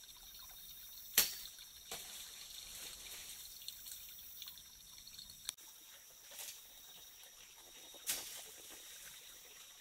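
A few sharp cracks and snaps from people moving through jungle undergrowth, the loudest about a second in and another near eight seconds, over a steady background hiss.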